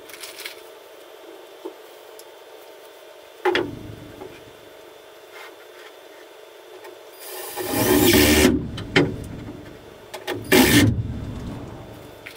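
Cordless drill driving screws into a wooden support board: one run of about a second and a half past the middle and a shorter run near the end, after a short thump a few seconds in.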